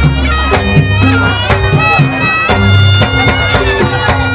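Live jaranan gamelan music: a slompret shawm plays a held, reedy melody over struck kendang drums, kettle gongs and a deep gong that rings out in the first half second.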